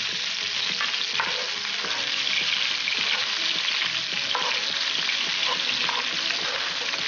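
Sliced onions frying in hot oil in a pan, a steady sizzle.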